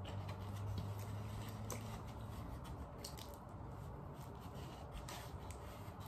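Soft crackles and ticks of a bread roll being torn and chewed, over a low steady hum that is strongest in the first half.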